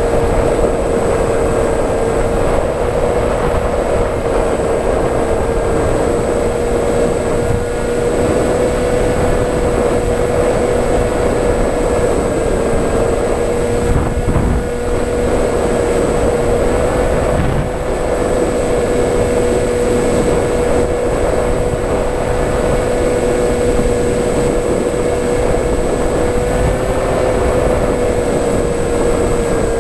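FPV model aircraft's motor and propeller running with a steady whine that drifts only slightly in pitch, over a constant rushing noise.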